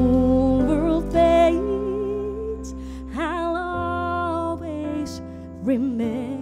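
A woman singing a slow ballad, with long held notes and quick vocal runs, over sustained keyboard chords and bass notes.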